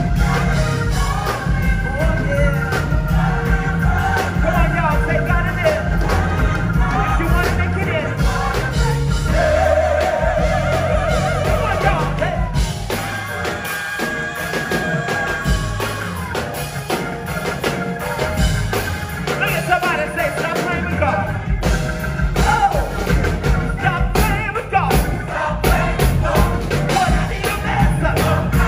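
Live gospel choir singing full-voiced over a band with drums and bass; the bass and drums thin out for several seconds in the middle before coming back in.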